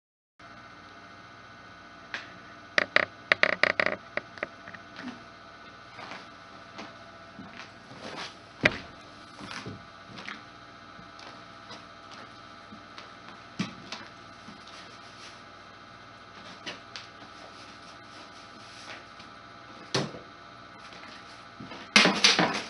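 Faint steady hum under scattered light knocks and clicks of someone handling things, with a cluster of them about three seconds in. Near the end a louder rough, scraping noise starts.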